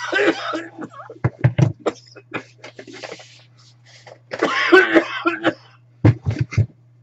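A person coughing in fits: a breathy cough at the start, short sharp coughs with dull low thumps, and a longer coughing bout about two-thirds of the way through. A faint steady low hum runs underneath.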